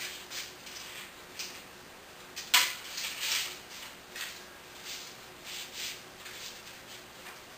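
A person's footsteps and shuffling on a tiled floor, with one sharp knock about two and a half seconds in.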